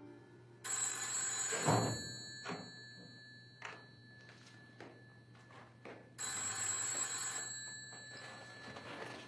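Telephone bell ringing twice, each ring lasting about two seconds, with a few soft knocks in the pause between the rings.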